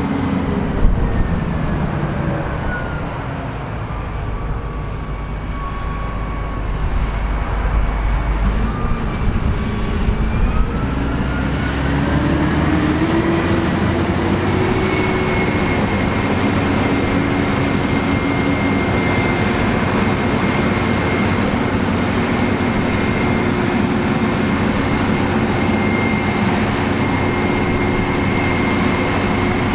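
New Holland CR11 combine harvester running: its engine and threshing machinery drop in pitch over the first few seconds, stay low, then rise again about ten to fourteen seconds in and hold a steady hum with a high whine.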